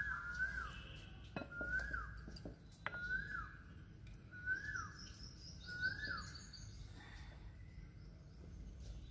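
A bird calling over and over: a short whistled note that rises, then drops sharply, repeated about once every second and a half, five times. Fainter, higher chirps follow near the end.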